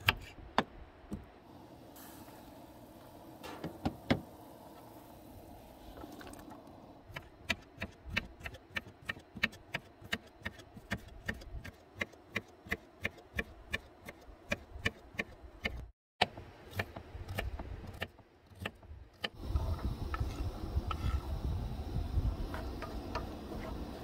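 Kitchen knife chopping onion on a wooden cutting board: a few scattered knocks, then steady chopping at about three strokes a second. Near the end, diced onion is tipped from the board into a hot frying pan on a camp stove and starts sizzling in the fat, a dense steady hiss.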